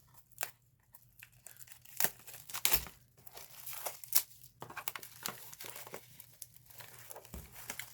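Wrapping being torn open and crinkled by hand off a boxed music album, in irregular sharp crackles and rustles.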